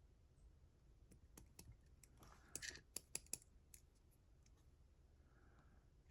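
Faint small metallic clicks as pins and parts of a disassembled Mottura CP6 lock are handled. A few scattered clicks come first, then a quick run of sharper clicks about two and a half to three and a half seconds in.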